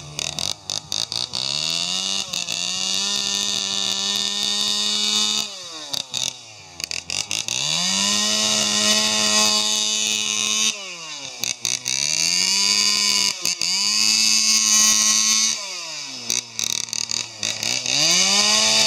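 Husqvarna Special 40 two-stroke chainsaw fitted with a stainless-steel expansion-chamber exhaust, revving up to full throttle and cutting into a wooden log, then dropping back toward idle between cuts, about five times.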